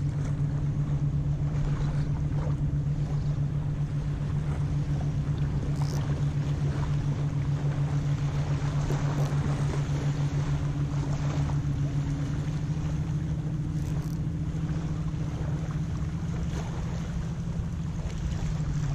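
A steady low engine drone, holding one pitch throughout, over a haze of wind and water noise.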